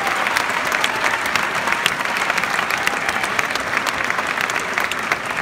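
Large crowd applauding steadily, a dense patter of many hands clapping at once.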